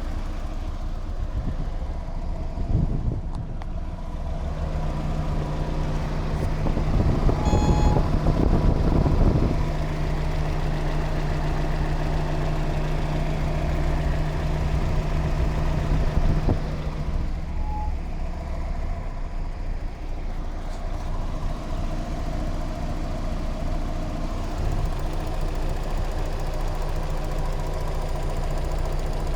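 Mazda MX-5 Miata's four-cylinder engine running, with the ticking the owner hears from the left side of the engine, which he suspects comes from the valvetrain's hydraulic lash adjusters. It grows louder for a couple of seconds about seven seconds in.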